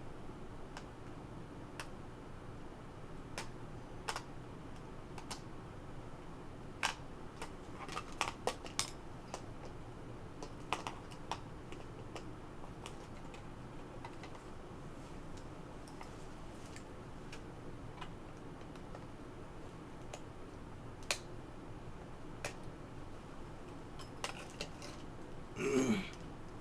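Scattered small clicks and taps of hand tools and tiny screws on a laptop's plastic and metal internals as the CPU fan is being unscrewed and freed, bunched in a few flurries. A brief louder scrape comes just before the end, over a steady low hum.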